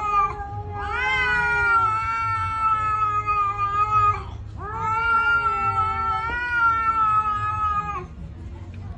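A domestic cat yowling in a standoff with another cat: a brief call at the very start, then two long, steady-pitched yowls of about three and a half seconds each, each rising at the onset before holding level. This is a threatening, defensive yowl aimed at the other cat.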